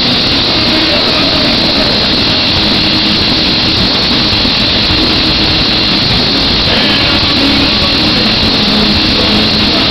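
Horror punk band playing live at full volume: distorted guitars, bass and drums blurred into a dense, unbroken wash by an overloaded recording.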